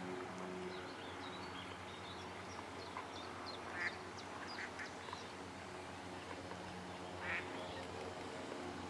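Ducks quacking: four short quacks, one about four seconds in, two just after, and one more about seven seconds in, over small birds chirping and a low steady hum.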